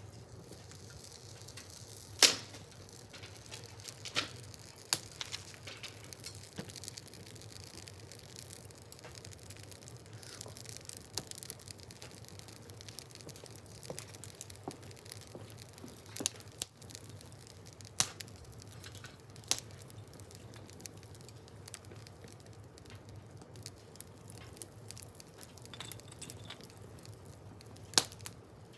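Wood fire burning, crackling steadily with sharp pops every few seconds; the loudest pops come about two seconds in and near the end.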